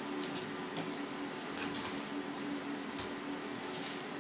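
Faint soft, wet handling sounds of diced raw chicken and pork being scooped by hand off a cutting board into a mixer bowl, with a few light ticks, over a steady low hum.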